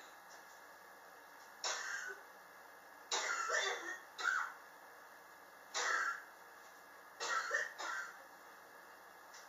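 A person's chronic cough: a series of about six separate coughs, some coming in quick pairs. The person blames the long-running cough on sharp temperature changes in their apartment.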